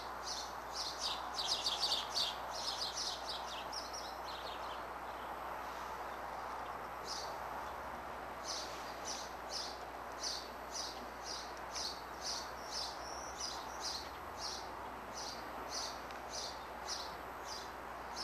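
Songbirds chirping: a burst of rapid twittering in the first few seconds, then single short chirps repeating about twice a second, over a steady background hum.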